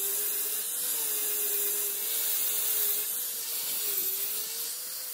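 Angle grinder with an abrasive flap disc sanding the face of a steel motorcycle brake disc: the motor's steady whine wavers slightly as the disc is pressed on, over a continuous hiss of abrasive on metal.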